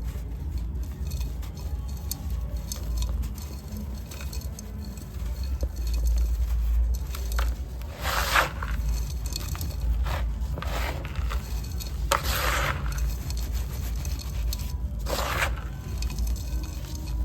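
Dry sand and clay pieces crumbling and scraping, with four or five louder crunching crumbles in the second half over a steady low rumble.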